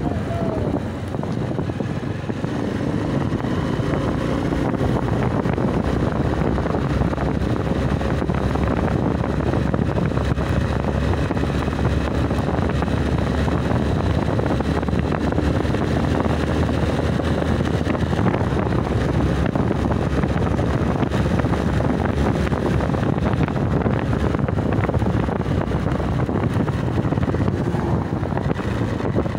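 Motorcycle engine running steadily while riding along a road, getting a little louder a few seconds in, with wind buffeting the microphone.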